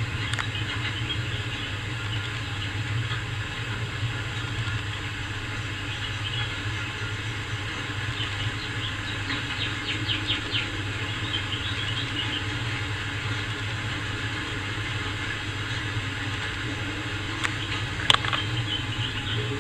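A steady low mechanical hum, with a short spell of faint crackling about halfway and one sharp click near the end.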